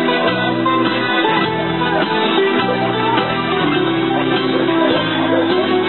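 Instrumental music led by plucked strings, playing steadily as the accompaniment to a dog dance routine.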